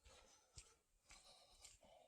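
Near silence: faint outdoor ambience with a few soft, faint ticks and scuffs.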